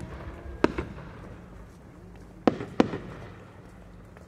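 Several sharp firework pops from a No. 8 (about 24 cm) Japanese aerial shell climbing with its rising effects: one at the start, a pair just under a second in, and another pair about two and a half seconds in, over a low rumble.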